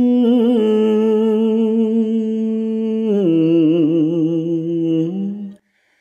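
A man chanting Khmer kak kati verse in the lamenting pilap style, drawing one syllable out into a long held note. About three seconds in the voice steps down to a lower pitch with a wavering ornament, then breaks off for a breath near the end.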